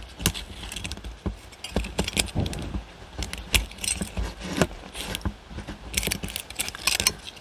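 Peel-off metal lid being torn back from a can of dry dog food, with irregular metallic clicks and crinkling as the lid bends and comes away.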